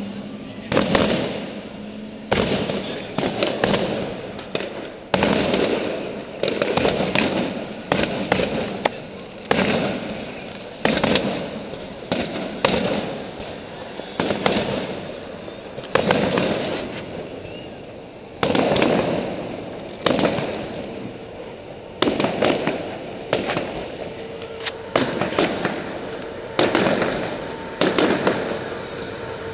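Aerial fireworks display: a steady run of loud bangs from shells bursting, about one every second or so, each dying away before the next.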